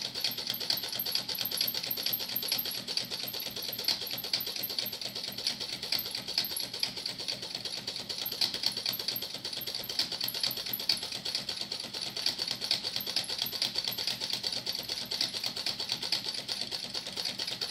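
Homemade tin-can Stirling engine with a CD flywheel running steadily over a tealight flame, its moving parts making a rapid, even clicking.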